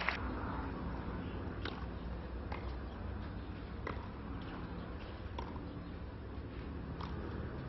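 Tennis ball being struck back and forth in a rally: about five sharp hits a second or so apart, over the steady low hum and hiss of an old broadcast soundtrack.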